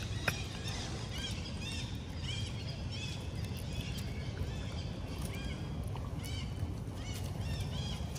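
High chirping calls, short rise-and-fall notes in quick runs of two to four, repeating throughout, over a low steady rumble.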